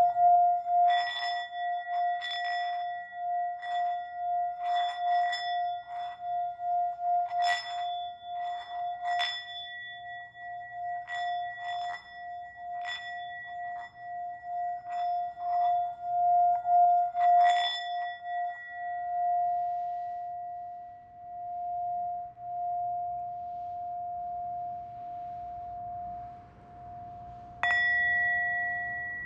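Singing bowl humming with one steady, wavering tone. Irregular light strikes set off higher ringing overtones about once a second for the first eighteen seconds or so. The hum then carries on alone until a single sharp strike near the end starts a new, higher ringing tone.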